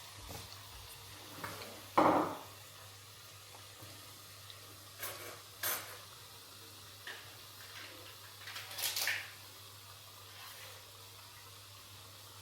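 Kitchen utensils clinking and knocking against dishes a handful of times, with the loudest knock about two seconds in.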